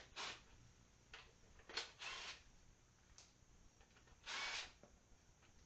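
Faint, sparse handling noises: a sharp click about two seconds in, followed by a short scrape, and another half-second rubbing scrape about four seconds in.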